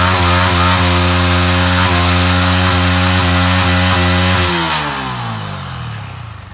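Single-cylinder motorcycle engine held at high revs during a rear-tyre burnout, with the hiss of the spinning tyre scrubbing on the ground over it. The revs hold steady, then drop away about four and a half seconds in.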